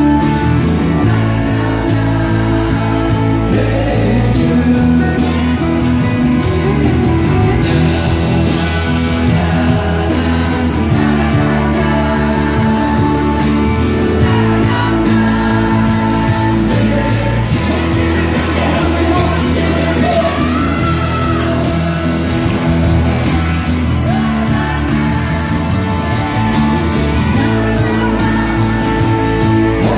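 Live country band playing a song: several singers, men and women together, over guitars and drums.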